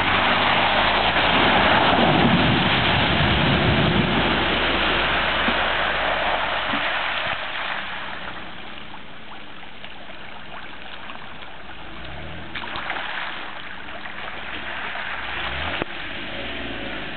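Jeep Wrangler Unlimited Rubicon driving off along a flooded trail, its engine running and its tyres splashing through the water. Loud at first, then fading over the first half as the Jeep moves away.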